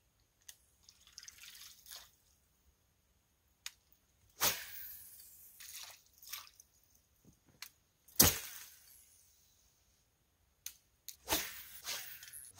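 Scattered sharp clicks and knocks from a fishing rod and reel being worked and cast while frozen. Two louder knocks, about four and eight seconds in, trail off briefly.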